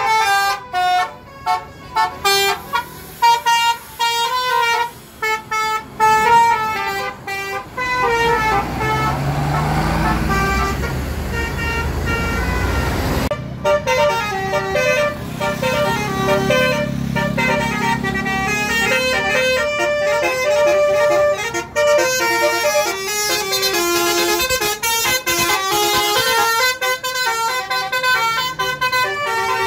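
Bus 'telolet' multi-tone horns playing quick tune-like runs of stepping tones, again and again. About a third of the way in, a passing vehicle's engine and road rush swells and then cuts off suddenly.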